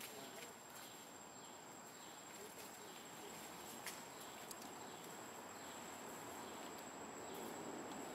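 Faint outdoor ambience with a steady high-pitched insect drone, such as crickets or cicadas. Two soft clicks come about four seconds in.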